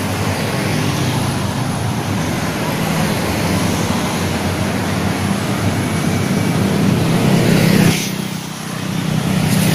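Road traffic noise of cars and motorcycles running along the street. It swells slowly, drops away abruptly about eight seconds in, then returns.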